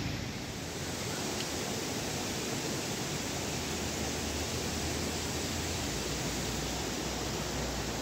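Waterfall: a steady rushing of falling water.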